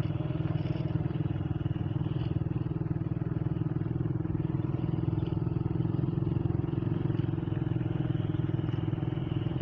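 Small motorcycle engine running at a steady low speed, an even hum that holds the same pitch throughout.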